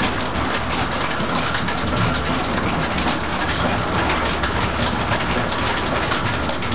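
Steady rushing of water with the low rumble of a water-powered grinding mill's wheel and drive, an even noise with a fine patter running through it.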